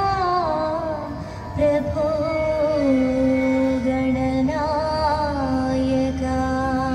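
Music: a woman singing a Thiruvathira dance song in Carnatic style, with gliding, ornamented phrases and long held notes.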